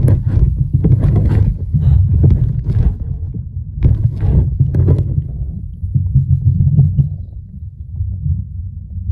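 Stream water flowing past a submerged camera, heard from underwater: a deep, uneven rumble with bursts of crackling and knocks, easing off and quieter for a couple of seconds near the end.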